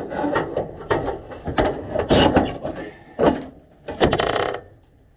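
Metal knocks, clanks and scraping as a car's steering column is worked loose and pulled out, ending in a short rattling scrape about four seconds in.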